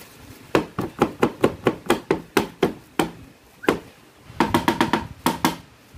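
Kitchen knife chopping garlic on a cutting board: a quick run of sharp knocks, about four to five a second, then a short pause and a second burst of chops near the end.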